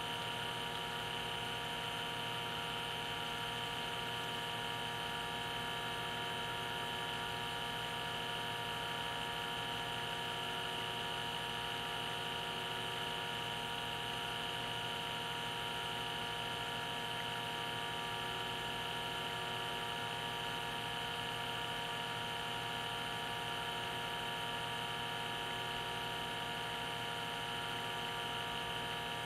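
Steady electric hum of a small motor, with several fixed tones and no change in level or pitch.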